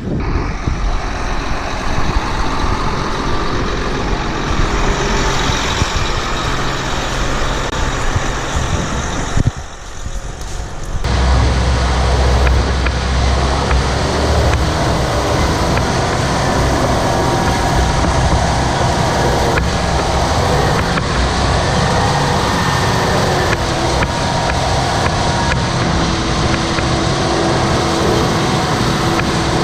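Heavy farm vehicle engine running steadily. It drops out briefly about ten seconds in, then comes back louder and steadier.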